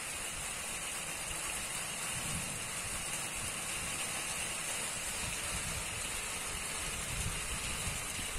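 Steady hiss of rain falling during a thunderstorm, with an uneven low rumble underneath.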